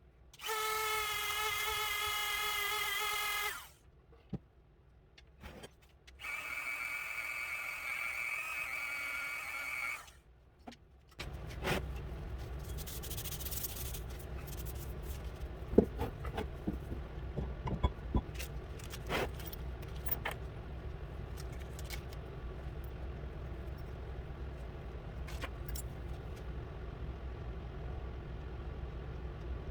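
Power tool running in two short whining bursts, the second higher-pitched. After that a steady low hum with scattered clicks and knocks.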